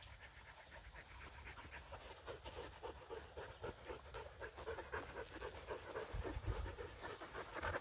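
A dog panting fast and rhythmically, about five breaths a second, winded from play. There is a brief low rumble about six seconds in.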